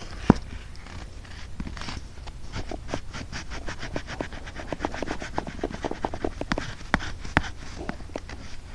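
Crayon scribbling on paper close up: a fast, uneven run of short scratching strokes, with a sharper click just after the start.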